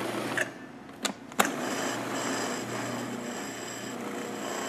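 Electric blender pulsed on chopped peas, scallions, garlic and basil. The motor cuts out about half a second in and there are two clicks. It then starts again and runs steadily with a high whine.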